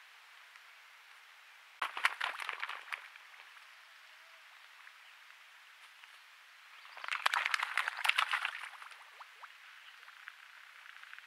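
Steady trail-camera microphone hiss, broken twice by about a second of dense crackling rustle, about two seconds in and again about seven seconds in.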